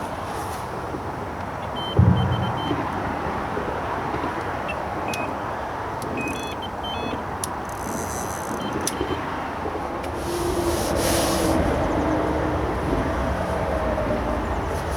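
Steady road-traffic noise from the A14 bridge. A low thump comes about two seconds in, and a few short high beeps sound in the first half.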